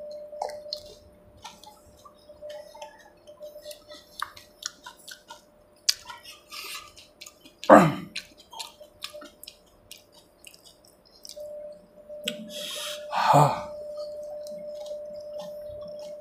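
Close-up eating of a water-filled pani puri (gol gappa): crisp shells crunching and wet chewing as many small clicks. Two louder, noisier mouth sounds come about eight and thirteen seconds in.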